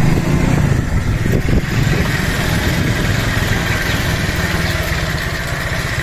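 Motorcycle engine running steadily at idle.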